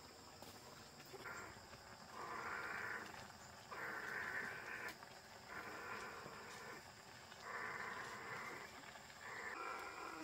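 An animal calling in a repeated series of about six calls, each roughly a second long, coming at fairly even intervals.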